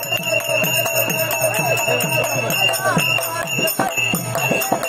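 Therukoothu street-theatre music: jingling bells and repeated drum strokes over a steady held drone.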